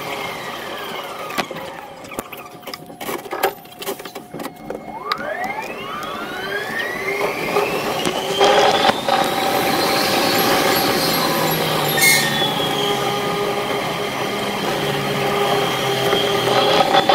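Sped-up sound of a Keihan limited-express electric train. The traction-motor whine falls in pitch as the train pulls into a station, then a short stop with scattered clicks and knocks. The whine then rises in pitch as the train accelerates away and settles into a steady running sound.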